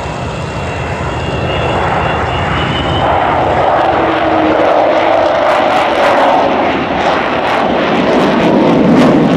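Avro Vulcan's four Rolls-Royce Olympus turbojets as the bomber flies past overhead, growing steadily louder. A thin high whine sounds through the first three seconds, then gives way to a lower, crackling jet noise that is loudest near the end.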